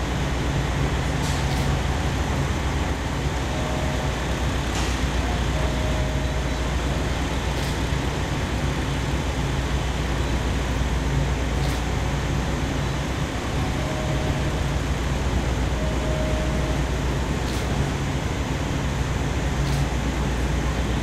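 Diesel railcar engines running with a steady low hum as a HOT7000 railcar moves slowly through the depot. A few faint clicks are heard now and then.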